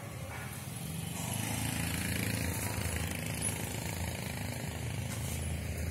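A small motorcycle engine running steadily at low speed, a low hum that grows louder about a second in.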